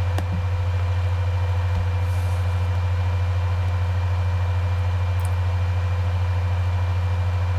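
A loud, steady low electrical hum with fainter steady higher tones above it, unchanging throughout.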